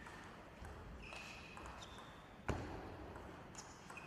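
Table tennis rally in a hall. A ping-pong ball is struck with one sharp, loud crack about two and a half seconds in, with a few brief high squeaks of shoes on the court floor before it.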